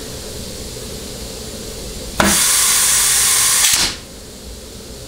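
Shop compressed air hissing from a rubber-tipped blow gun held to the direct clutch feed hole of a Ford C6 transmission pump. One blast of about a second and a half starts about two seconds in, applying the direct clutch piston so its clearance can be read on a dial indicator. A low steady hum comes before it.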